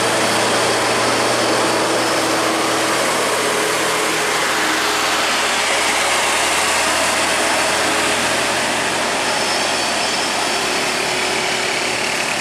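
Heavy trucks' diesel engines running, a steady loud drone as they pass on a hill road.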